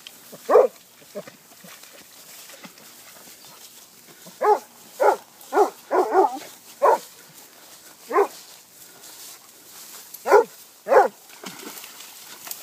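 Hunting dog barking: about ten short single barks at uneven intervals, some coming in quick pairs, while it works its nose into a hole at the base of a bush.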